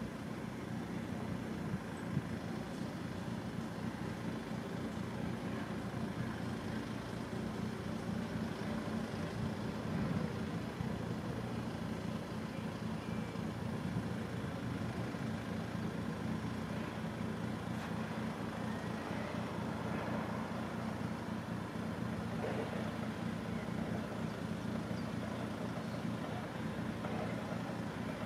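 Class 156 diesel multiple unit's underfloor engine idling steadily, a low even drone that holds through.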